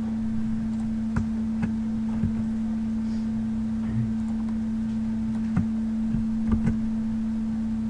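Scattered soft clicks of a computer mouse and keyboard, nine or so at uneven intervals, over a steady low hum.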